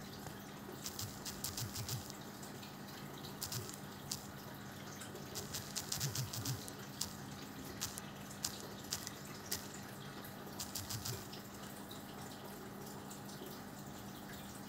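Quick, irregular clicking taps in short runs from typing on a smartphone's on-screen keyboard, over a faint steady low hum.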